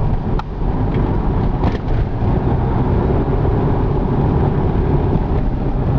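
A car driving along a country road, heard from inside the cabin: steady engine and tyre rumble, with a couple of light clicks in the first two seconds.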